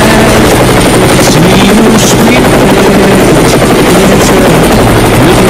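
Helicopter running steadily and loudly, its rotor and engine noise filling the sound.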